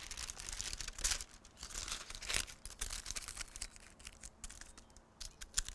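Wax paper crinkling and rustling as it is peeled back off a sheet of rolled-out ground beef and handled, in irregular crackles that thin out toward the end.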